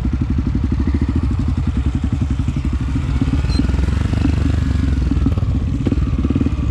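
Honda CRF250F single-cylinder four-stroke dirt bike engine running steadily, its exhaust pulses rapid and even.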